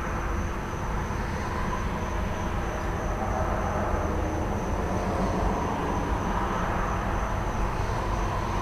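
Idling truck engine with a steady low rumble, road traffic swelling and fading, and crickets trilling in one steady high tone.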